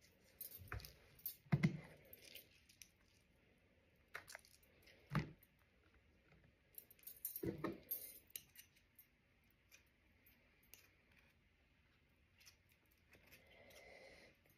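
Oyster shells and an eating utensil clinking and clattering, with a few sharp knocks among the clinks.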